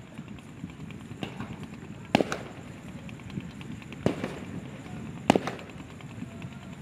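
Distant fireworks shells bursting: three sharp bangs about two, four and five seconds in, the last the loudest, with a few fainter pops between.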